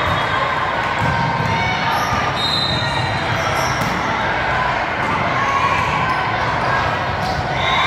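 Echoing sports-hall din from a volleyball game in progress: a crowd chattering, with volleyballs being struck and bouncing on the courts as scattered light thuds.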